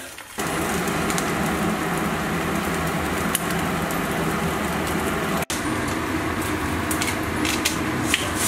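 Eggs sizzling in hot oil in a frying pan, a steady sizzle with small pops and crackles. The sizzle starts about half a second in and drops out for an instant near the middle.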